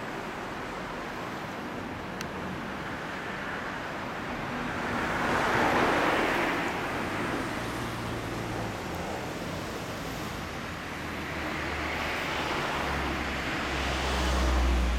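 Road traffic: vehicles passing by in two swells, one about five seconds in and a louder one near the end, over a steady street hum.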